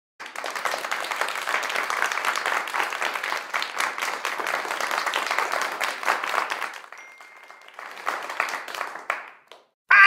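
Stock crowd applause and cheering sound effect: dense clapping that dies down about seven seconds in, leaving a few scattered claps. A short loud vocal cry starts right at the end.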